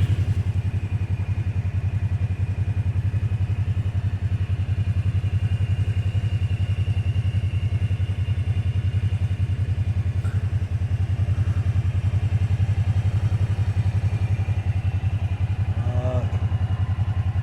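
2022 Kawasaki Teryx 800 side-by-side's parallel-twin engine idling with a steady, even pulse.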